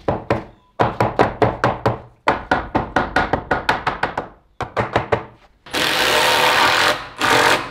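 Festool TID 18 cordless impact driver running screws into wooden ceiling framing. Runs of rapid clattering impacts come first, then a steadier, louder run in the last two seconds, broken once.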